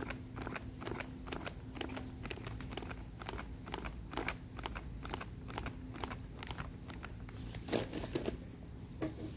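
Charcoal grill crackling under skewered lamb: irregular sharp crackles and pops as fat spits on the embers, with a louder cluster near the end, over a faint low steady hum.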